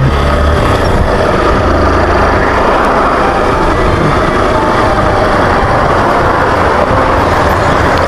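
Motorcycle riding along, its engine running under a steady loud rush of wind and road noise on the microphone.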